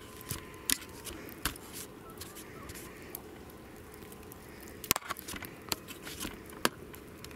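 Handling noise from a handheld camera: scattered light clicks and taps, the sharpest about five seconds in, over a faint steady hiss.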